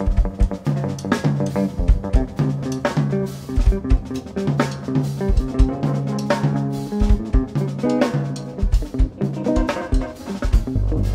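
Jazz band playing live: a drum kit with kick and snare hits drives the music, with a semi-hollow electric guitar and a moving line of low sustained notes underneath.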